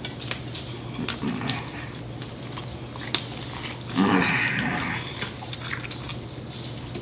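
Close-up chewing and biting of fried chicken wings: scattered wet smacks and clicks, and a louder crunchy stretch about four seconds in, over a steady low hum.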